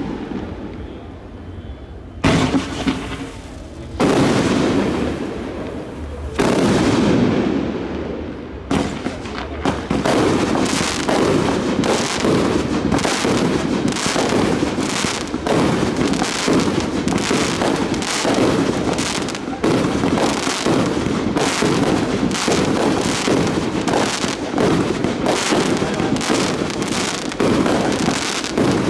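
Aerial fireworks going off. First come a few separate booms, each with a long rolling tail; then from about ten seconds in a rapid barrage of bangs follows, about two a second.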